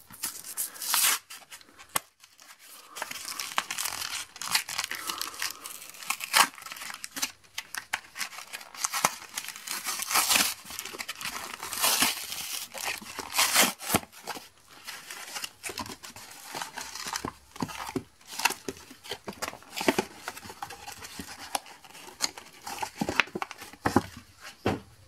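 A foil Pokémon booster pack and its plastic blister packaging being torn open and crinkled by hand: irregular crackling rips that come in bursts, loudest around the middle.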